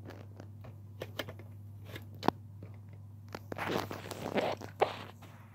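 Light clicks and small knocks of diecast toy trucks being handled, with one sharper click a little over two seconds in, then a couple of seconds of soft rustling, over a steady low hum.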